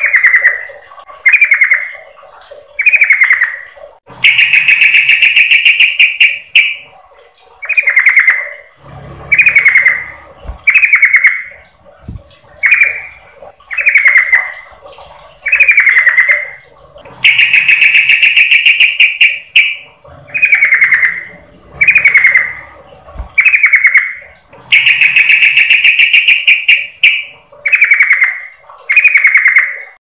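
Yellow-vented bulbul (trucukan) calling, as a lure recording that the uploader labels a female calling to a male. It gives a run of short falling notes about a second and a half apart, broken three times by a longer buzzing trill lasting two to three seconds.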